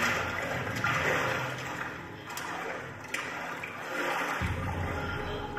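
A rushing, water-like noise in a stage soundscape played over the theatre's speakers, swelling and fading about once a second.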